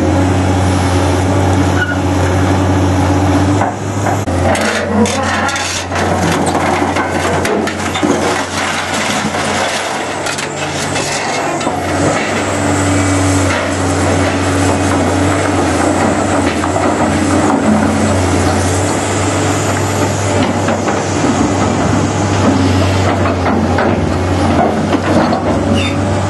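Large tracked excavator's diesel engine running steadily under hydraulic load, with irregular knocks and clatter of scrap iron and wood debris as it works the pile. The clatter is busiest between about four and eight seconds in.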